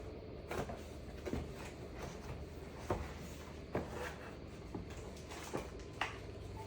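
Scattered light clicks and knocks, about six in all, from computer parts being handled, over a steady low hum.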